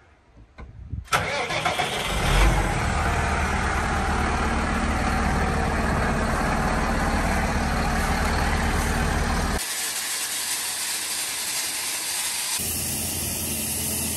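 Massey Ferguson S 7718 tractor's six-cylinder diesel engine cranking and starting about two seconds in, then running steadily at idle. About ten seconds in the engine sound stops abruptly and a different steady noise follows.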